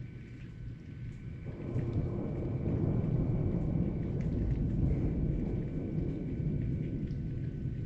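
Thunder rumbling, swelling about a second and a half in and slowly dying away, with rain falling.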